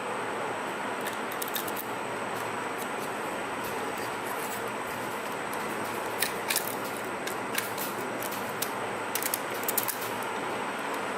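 Small, sharp clicks and ticks of plastic and metal camera parts and small tools being handled as a DSLR is taken apart, over a steady background hiss.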